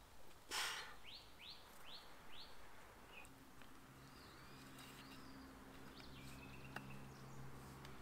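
A short rustling scrape of rope being handled and pulled while lashing a wooden frame. Then a bird gives four quick rising chirps in a row, followed by a few more scattered calls. A faint low steady hum comes in about three seconds in.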